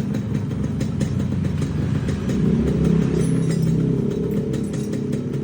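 Yamaha RX-King two-stroke single-cylinder engine running at low revs, its exhaust set up for the deep, uneven 'ngorok' (snoring) note. It swells louder about halfway through and then eases back.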